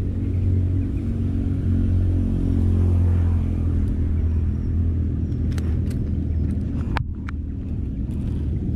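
An engine running steadily in the background, a low, even hum, with a few light clicks about two-thirds of the way through.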